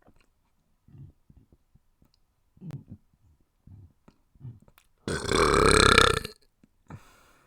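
A person burping: one long, loud belch lasting just over a second, about five seconds in, after a few faint short sounds.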